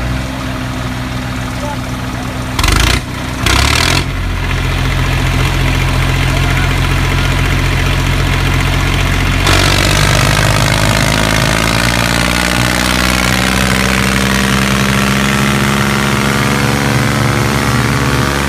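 Tractor engine sound, running steadily, with two short loud bursts about three seconds in. From about nine seconds in it turns harsher and its pitch wavers slowly up and down.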